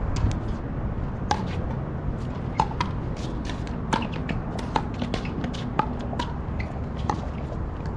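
Pickleball paddles striking a plastic pickleball: a string of sharp pops, some with a brief ringing ping, roughly one every second, over a low steady rumble.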